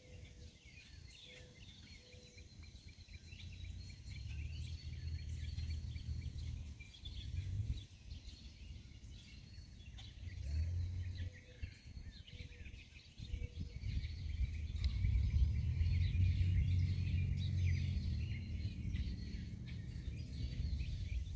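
Outdoor ambience: a gusty low rumble of wind on the microphone, stronger in the second half, with faint scattered bird chirps and insect calls.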